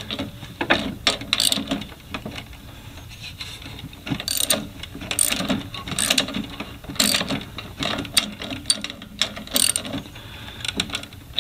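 Socket ratchet clicking in short, irregular bunches as it turns the crankshaft of a Honda GVC140 mower engine that is still very tight to turn, seized from running without oil as the owner suspects.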